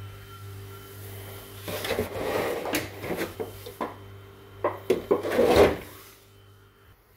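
Food containers and a plastic milk jug being handled in an open refrigerator: a run of knocks, clatters and rubs against the shelves and door bins, loudest about five and a half seconds in. A steady low hum sits under the first couple of seconds.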